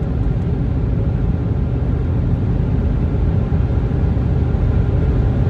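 Steady low rumble of road and engine noise heard inside the cabin of a moving vehicle.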